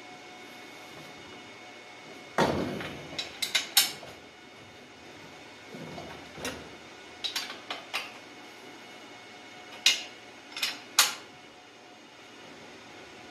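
Wrench clinking and scraping on the bolts and metal case of a vintage Ski-Doo Rotax engine as the bolts are tightened. A short rattling scrape about two seconds in, then sharp metal clinks in small groups of two or three.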